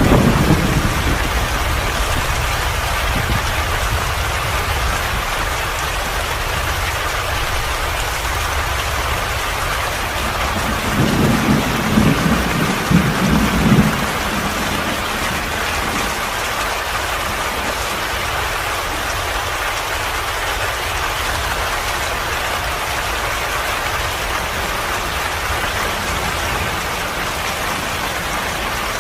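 Steady rain falling on a surface, with a low rumble of thunder right at the start and another, louder roll of thunder lasting a few seconds about eleven seconds in.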